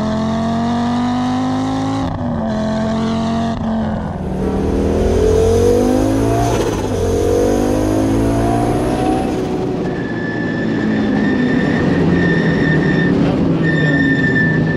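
Audi Sport quattro S1 Group B rally car's turbocharged five-cylinder engine accelerating hard, rising in pitch with a sharp drop at an upshift about two seconds in, then revving up and down between corners. About two-thirds of the way through, a steady high whine joins the engine sound.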